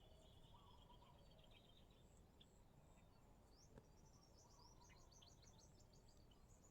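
Faint birdsong over a quiet outdoor background: a short high trill near the start, then a longer run of quick, high chirps from about three and a half seconds in.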